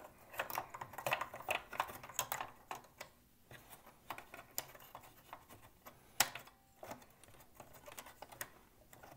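Small hard plastic clicks and knocks as a boom box's plastic trim piece is handled and fitted over the cassette deck mechanism. A rapid flurry of clicks in the first few seconds, then sparser ones, with one sharper click about six seconds in.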